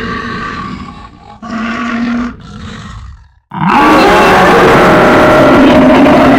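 Bear growl sound effect: short, rough growls, then about three and a half seconds in a long, loud roar.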